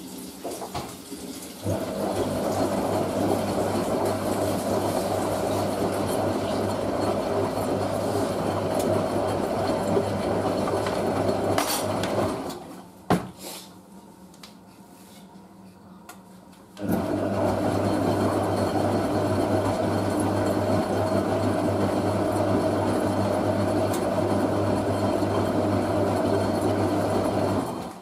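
Hotpoint 9530 front-loading washing machine tumbling its drum in the wash, with water sloshing and the motor humming. About twelve seconds in it stops for some four seconds, with a click in the pause, then starts again as the drum reverses direction.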